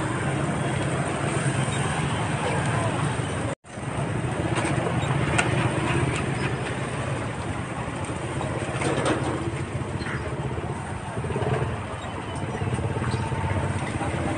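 Busy street ambience: vehicle engines, likely motorbikes, running and passing with a steady low hum, with people talking in the background.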